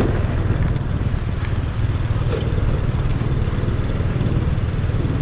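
Motorcycle riding along a city street: a steady low rumble of engine and road noise.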